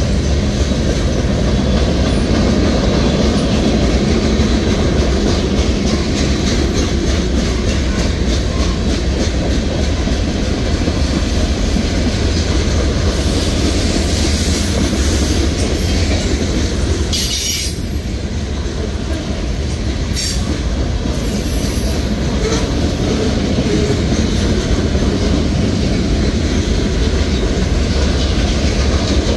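Freight cars of a Norfolk Southern manifest train rolling past close by: a steady rumble of steel wheels on the rails, with a few short high squeals from the wheels past the middle.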